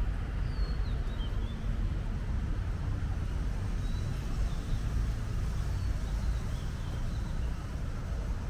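Steady low rumble of city traffic from the surrounding roads, with a few faint high bird chirps over it.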